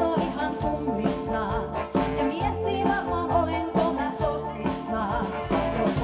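Live band playing a song with a steady beat and held chords, with a woman singing lead through a microphone.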